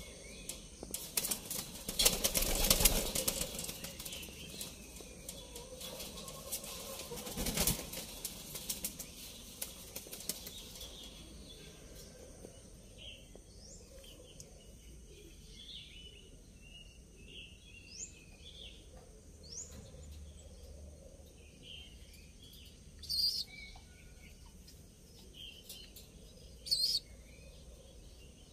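Pigeons flapping and rustling in a wire loft, with loud flurries of wingbeats about two and eight seconds in, settling after about ten seconds. After that it is quieter, with short high bird chirps and two brief noisy bursts near the end.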